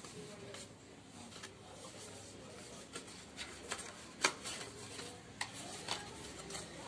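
Hands handling an opened phone box and its packaging: soft rubbing with a run of light clicks and taps, the sharpest one about four seconds in.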